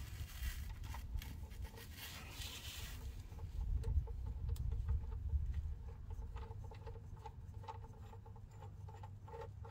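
Faint rubbing and scattered light metallic ticks of fingers threading the crank position sensor's small retaining bolt into its bracket by hand, over a low steady rumble.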